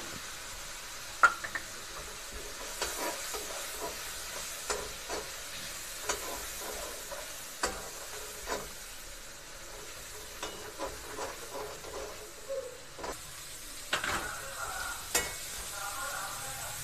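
Spiced onion-tomato masala sizzling in oil in a steel kadai while a metal spoon stirs and scrapes it, with many sharp clicks of the spoon against the pan. Near the end a louder clatter as potato and cauliflower pieces go into the pan.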